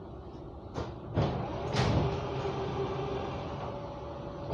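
Copenhagen Metro train's sliding doors closing at a station: three sharp knocks less than a second apart, the last two the loudest, over the steady hum of the standing train.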